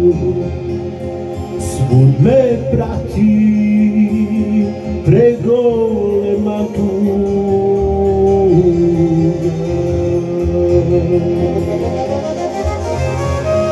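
Electronic arranger keyboard playing an instrumental passage of a Serbian folk song (narodnjak): a held lead melody that slides up into its notes twice, over a steady backing accompaniment.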